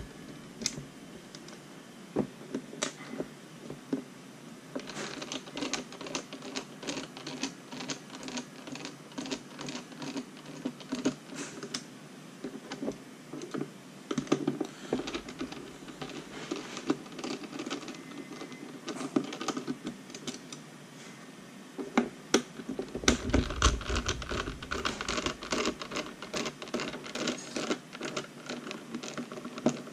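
A small screwdriver and hands working on a plastic RC transmitter case: irregular clicks, taps and light scrapes, in two busier stretches, with a dull bump about three quarters of the way through, as the stick gimbal's tension adjustment is worked on.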